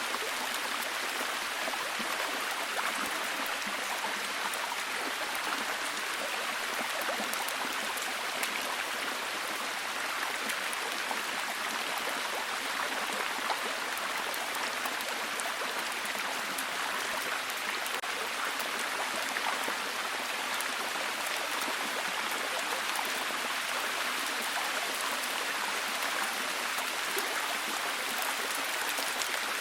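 Steady heavy rain, a dense even hiss of falling drops with fine pattering ticks.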